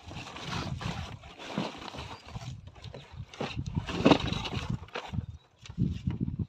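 Shredded paper packing and cardboard rustling and crackling as hands rummage through a delivery box, with irregular low thuds from handling the box.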